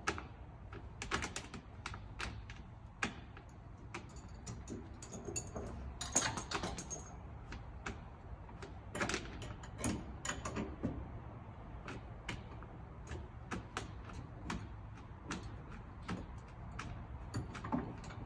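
Irregular clicks and ticks of screws being backed out of the wooden 2x6 boards of a piano shipping crate by hand, with a few short high squeaks about six seconds in.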